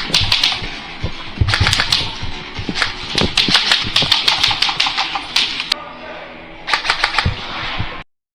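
Airsoft guns firing in short rapid bursts, several clusters of fast clicks one after another, with music underneath.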